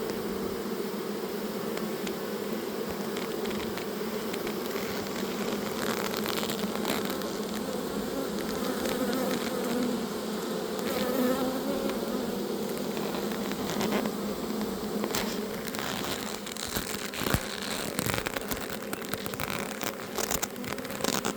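Honey bee swarm buzzing steadily at a hive entrance, a dense hum from many bees, some of them fanning their wings as if spreading their homing pheromone to guide the others in. In the second half, scattered sharp clicks and taps sound over the hum.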